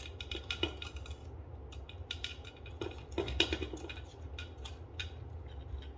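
Plastic parts of a foaming soap dispenser clicking and rattling as its pump unit, tubes and housing are handled: a run of short irregular clicks, thickest and loudest about three seconds in.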